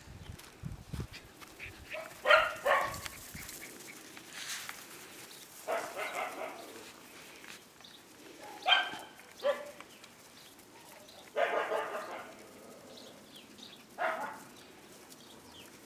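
Five-week-old Siberian Husky puppies barking in short, high bursts, about six times, a couple of seconds apart.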